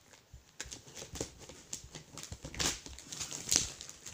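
Irregular rustling, crinkling and knocks from a parcel's packaging being handled and opened, with a couple of louder rustles near the end.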